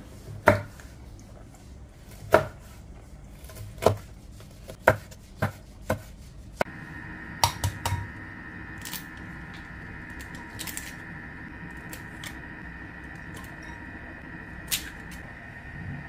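A chef's knife chopping a red chilli on a wooden chopping board, one sharp knock with each cut, at an uneven pace of a few seconds down to about half a second. Then, against a steady hum, eggs are cracked one after another into a ceramic bowl, a sharp tap every second or two.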